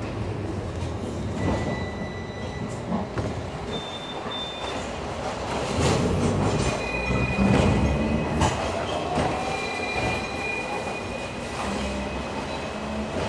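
Hong Kong double-decker electric tram running along its street tracks: a low rumble with clunks and clicks from the wheels on the rails, and brief high squeals of the wheels.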